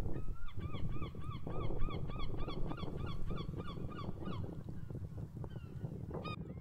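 Geese honking in a rapid run of short calls, about five a second, that stops a little past halfway, over a steady low rumble.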